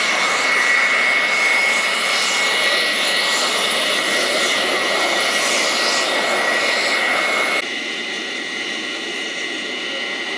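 Jet aircraft engines running on the airfield with a steady high whine. About seven and a half seconds in, the level drops abruptly to a quieter, similar jet whine.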